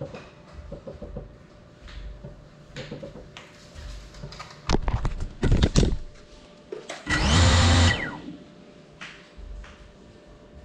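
GEPRC 35 cinewhoop's brushless motors and propellers whirring in short bursts. The loudest and longest burst comes about two-thirds of the way through and winds down in pitch as it stops. Light knocks and handling noise come between the bursts.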